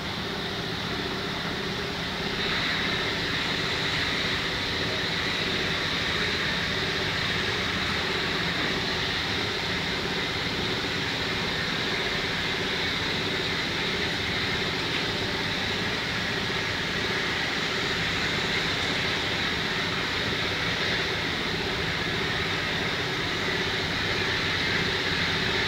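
Steady machine hum holding several fixed tones, with a higher whine joining about two and a half seconds in and running on unchanged.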